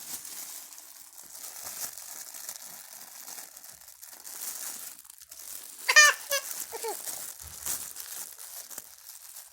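Toy packaging crinkling and tearing as an action figure is unwrapped, with a short high-pitched vocal squeal about six seconds in.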